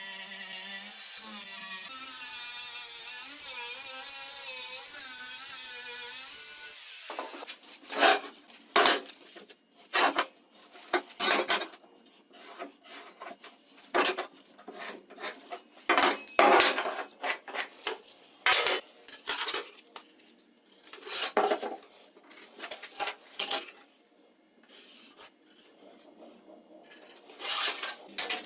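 Background music for about the first seven seconds, cutting off abruptly. Then comes a series of irregular scraping strokes from a hand tool on workpiece material, each about half a second long with pauses between.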